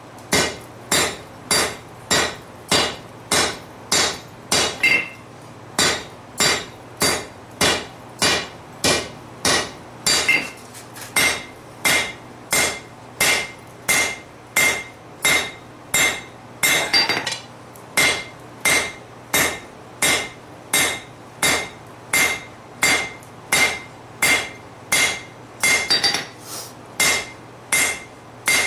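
Hand hammer striking a red-hot 3/4-inch square steel bar on an anvil, drawing out a taper. The blows are evenly paced, a little under two a second, each with a short metallic ring.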